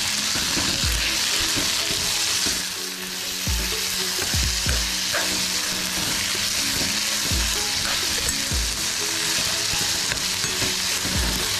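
Chopped tomato, onion and whole spices sizzling in hot oil in a kadai, a steady hiss, while a spoon stirs and scrapes through them, knocking softly against the pan every second or two.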